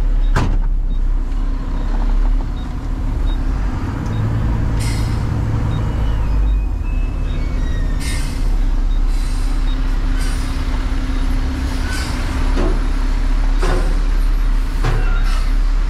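Front-loader garbage truck's diesel engine running steadily, with several brief hisses over it.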